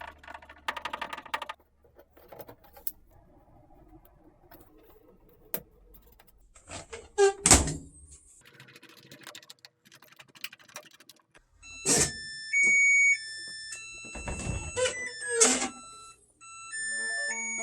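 Knocks and thunks of handling the washing machine's parts, one loud thunk about halfway. Then the machine's control panel plays an electronic beeping tune of stepped single tones.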